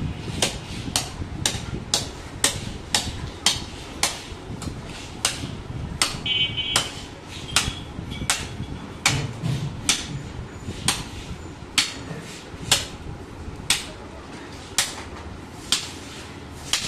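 A butcher's knife hacking repeatedly into a hanging goat carcass, splitting it down the middle: a run of sharp chopping strikes, about two a second.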